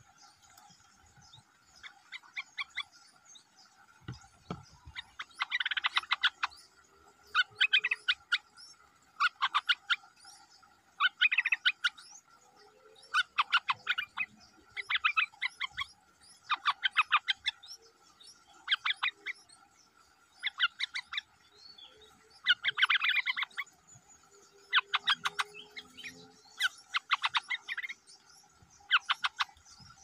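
Bulbul nestlings begging at the nest: short bursts of rapid chattering calls, repeated about every two seconds and louder after the first few seconds, over a steady high insect drone.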